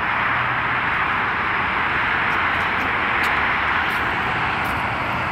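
Steady rush of highway traffic: many cars and trucks passing on a multi-lane interstate, giving an even tyre hiss with a faint low hum underneath.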